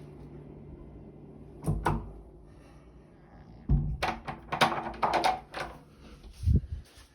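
A steady low hum, cut by a heavy thud about 1.7 seconds in, then a rapid cluster of knocks and bangs a couple of seconds later, and one more low thud near the end.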